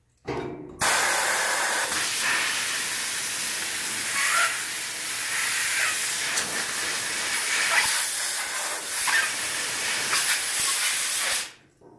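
Compressed air hissing steadily through a plate quench as it cools a hot air-hardening steel knife blade. The air comes on suddenly about a second in and cuts off just before the end.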